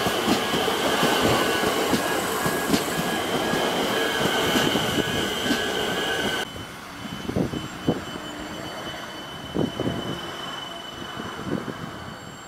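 Electric suburban train passing close by: wheels rumbling and clicking over the rails, with a steady high whine. About six and a half seconds in, the sound drops off sharply to a quieter scene: a faint high tone and a few soft thumps as another train approaches in the distance.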